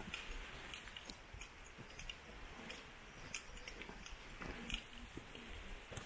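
Footsteps crunching on a wood-chip trail, irregular soft steps every half second or so, over a faint steady hiss.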